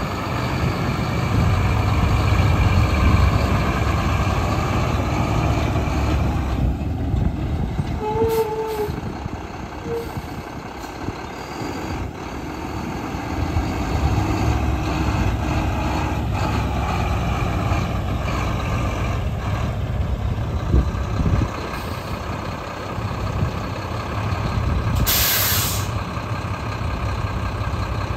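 Diesel engine of a Mack Granite GU713 tri-axle dump truck running as the truck drives, louder in two stretches. Near the end the air brakes let out a sharp hiss about a second long as the truck comes to a stop.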